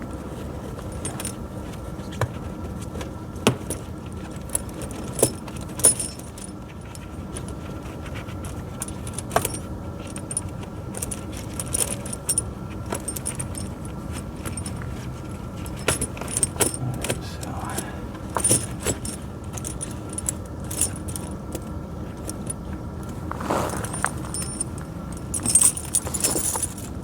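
Steel tractor tire chain links jangling and clinking as the chain is handled and pulled into place on the tire, in irregular clicks and rattles with a few sharper clanks.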